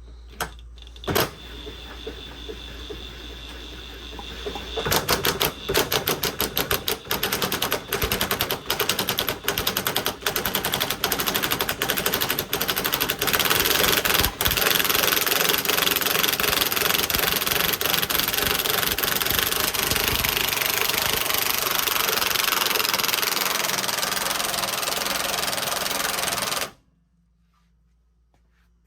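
DeWalt impact wrench spinning for a few seconds, then hammering in a rapid steady rattle for about twenty seconds under load before stopping suddenly.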